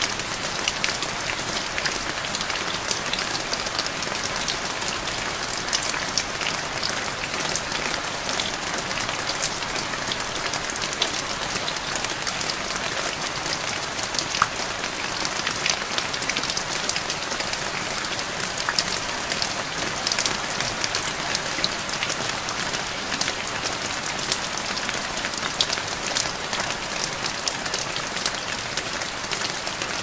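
Steady rain falling: an even hiss of water with many small, sharp drop ticks scattered through it.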